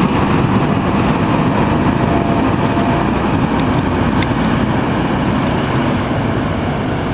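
Loram rail grinder train running: a loud, steady mechanical rumble that eases off slightly toward the end, with a brief click about four seconds in.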